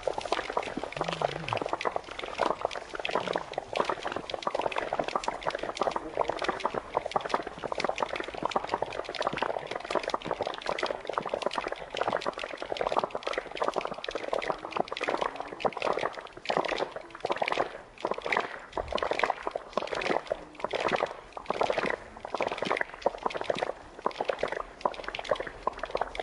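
Spectators clapping in a dense, steady patter, the claps falling into a more even rhythm in the latter half.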